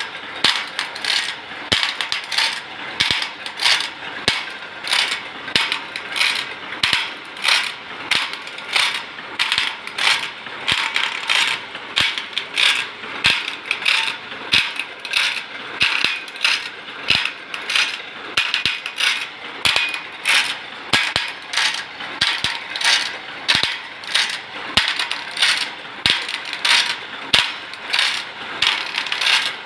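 Automatic saw-blade sharpening machine working along a band saw blade: a sharp clacking of the feed pawl and grinding head somewhat faster than once a second, each tooth grind followed by a short grinding hiss of the wheel on steel.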